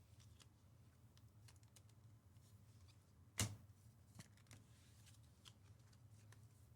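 Near silence with faint clicks and slides of trading cards being handled and sorted, and one sharper click about three and a half seconds in.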